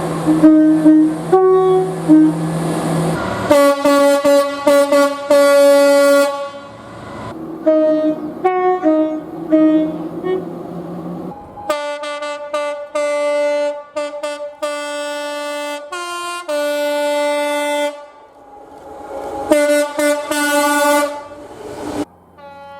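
Train horns sounding in a rapid series of blasts from several trains in turn, the multi-tone horns stepping back and forth between a higher and a lower note, with abrupt changes from one horn to the next.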